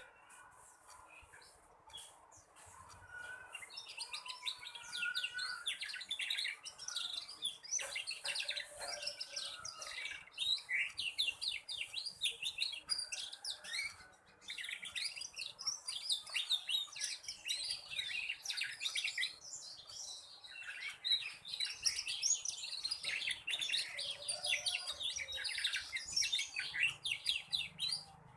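Young black-red canary singing in runs of rapid, high trilled notes, with a couple of short breaks: a juvenile bird practising its trilling song.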